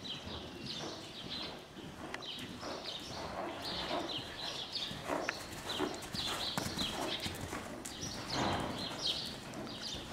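Hoofbeats of a Cleveland Bay/Thoroughbred cross gelding moving under saddle on the sand footing of an indoor arena, a steady rhythmic clip-clop, with short high chirps repeating over it.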